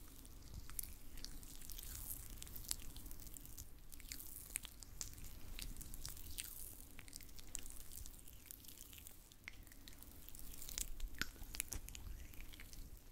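Oil massage sound: oiled hands rubbing and pressing, making wet, sticky squishing with many scattered small crackles and clicks.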